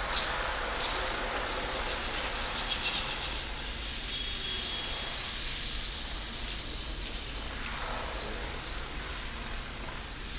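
Percussion ensemble playing small objects by hand on the floor, making a steady rustling, scraping texture with no clear beat. A few faint ringing tones come through near the middle.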